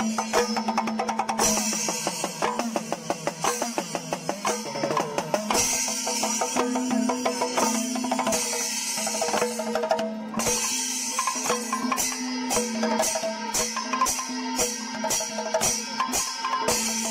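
Kerala panchavadyam ensemble playing: hand drums beaten in fast, dense strokes over a steady low tone. From about two-thirds of the way in, cymbals clash on an even beat, about two to three times a second.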